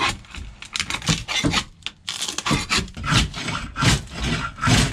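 Scraper scraping old fiberglass and resin off a boat deck in repeated rough strokes, about two or three a second.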